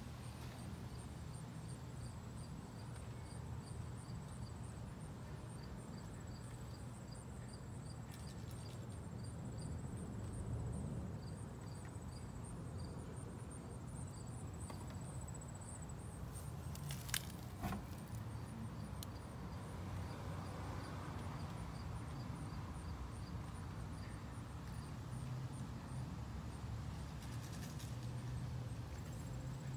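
Crickets chirping in a fast, steady high-pitched pulse over a low steady rumble, with one sharp click about seventeen seconds in.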